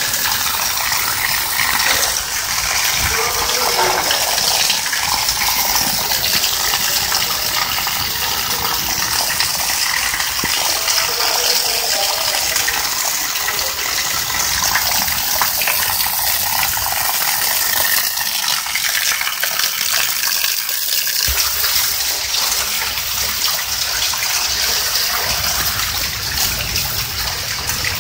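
Heavy rain falling and splashing onto wet ground and puddles, a steady hiss of water.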